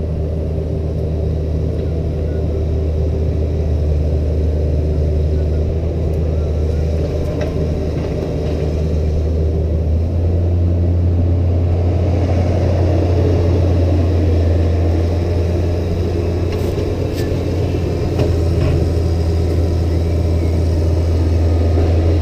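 Diesel engine of a CAT 304CR mini excavator running steadily under hydraulic work, with a deep, even hum. It works a little harder and louder from about ten seconds in.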